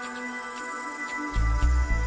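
Background music: sustained electronic tones with light regular ticks, joined by a deep bass line about a second and a half in.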